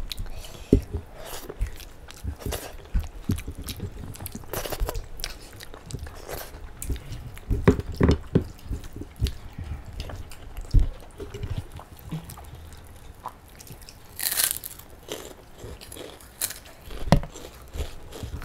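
Two people eating rice and kidney-bean curry by hand, close to the microphone: wet chewing and mouth sounds with occasional crunches as sharp, scattered clicks, and one brief louder hissing sound about fourteen seconds in.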